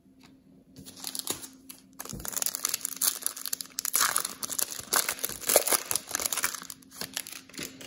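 Foil-and-plastic wrapper of a 2019 Prizm football trading card pack being torn open and crinkled by hand: a few soft handling clicks, then a dense crackling from about two seconds in, busiest in the middle and dying away near the end.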